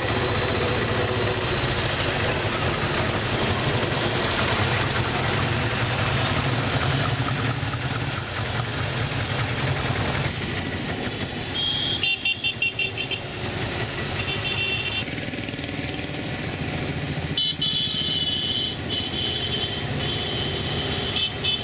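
Auto-rickshaw engine running while riding through street traffic, with motorcycles passing. In the second half vehicle horns honk several times, one in quick beeps and one held for about three seconds near the end.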